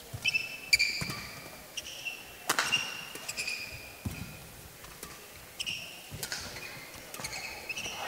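Badminton rally: rackets striking the shuttlecock in a series of sharp hits about a second apart, with short squeaks of players' shoes on the court in between.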